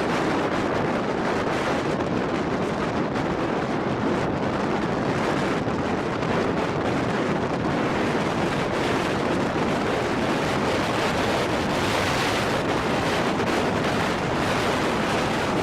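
Blizzard wind blowing hard and steadily, buffeting the microphone. The hiss grows brighter about twelve seconds in as a gust picks up.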